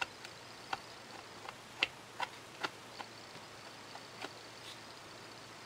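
Light, irregular clicks and taps from a plastic spreader working Bondo body filler onto a 3D-printed plastic drone shell, about eight faint ticks over a few seconds.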